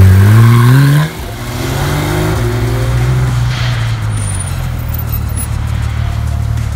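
Porsche engine revving hard as the car accelerates away. The pitch climbs, drops at a gear change about a second in, climbs again, then settles into a steady drone.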